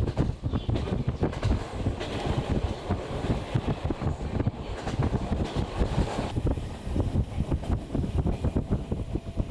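Wind buffeting the microphone of a camera carried while riding a bicycle, an uneven low rumble of gusts. A brighter hiss joins about two seconds in and stops abruptly around six seconds.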